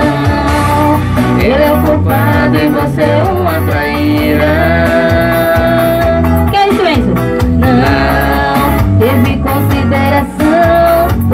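A woman singing into a handheld microphone over backing music, her voice wavering and gliding in pitch; the music drops out briefly near the end.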